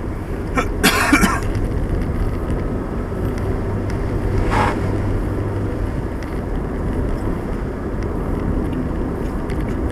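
Car driving on a country road, heard from inside the cabin: a steady low rumble of engine and tyres. Two brief hissing bursts stand out, one about a second in and one about four and a half seconds in.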